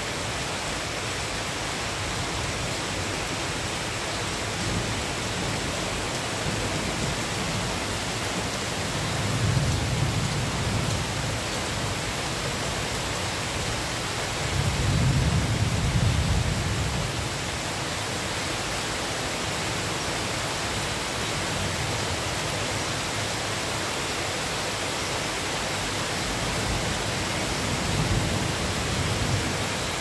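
Steady rain falling on garden foliage and wet pavement, a constant hiss. A low rumble swells up three times: around ten seconds in, at about fifteen seconds (the loudest), and near the end.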